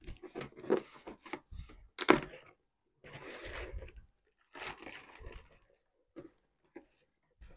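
Cardboard box wrapped in clear plastic packing tape being torn and pulled apart by hand: crackling, ripping tape and cardboard in short irregular bursts, the loudest a sharp rip about two seconds in, then scattered quieter rustles and taps.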